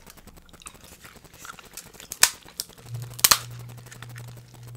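Close-miked eating of a seafood boil: chewing with many small clicks, a sharp crack a little over two seconds in and a quick double crack about a second later. A low steady hum comes in near the middle.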